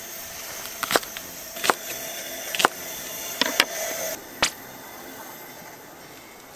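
Kitchen knife chopping a Japanese long green onion (negi) on a wooden cutting board: sharp knocks of the blade striking the board about once a second, stopping about four and a half seconds in.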